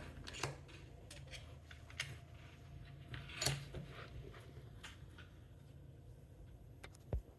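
A few faint, separate clicks and taps of a metal lock and tools being handled and set in a vise, over quiet room tone.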